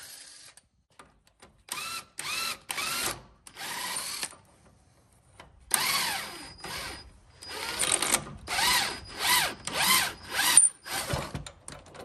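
Cordless impact wrench run in about a dozen short trigger pulls on a 24 mm spindle nut, its motor whirring up and down in pitch with each pull as the loosened nut is spun off the upper knuckle bolt.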